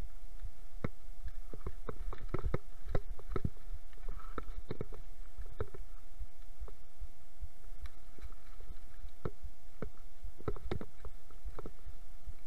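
Mountain bike descending a rough dirt and rock trail: a steady low rumble of tyres and frame vibration, broken by many irregular sharp clicks, knocks and rattles as the bike jolts over stones and roots, with a faint steady whine throughout.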